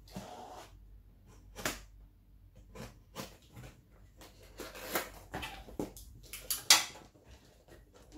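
Cardboard kit boxes being handled and shifted on a glass tabletop: irregular knocks, taps and scraping rustles, the loudest near the end.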